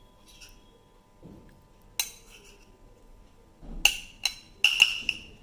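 A cup knocking and clinking against a ceramic bowl as ground almonds are tipped in: one sharp click about two seconds in, then a quick run of ringing clinks over the last second and a half.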